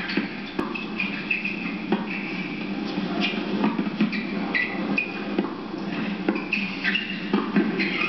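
A fast doubles tennis rally on a hard court heard through a television: a rapid run of racket-on-ball hits mixed with short, high squeaks of tennis shoes stopping and turning on the court.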